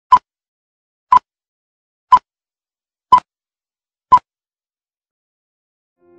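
Film-leader countdown beeps: five short blips, one a second.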